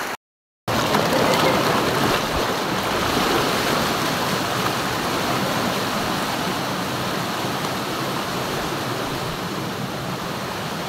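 Steady rushing of river water, cutting out completely for about half a second just after the start.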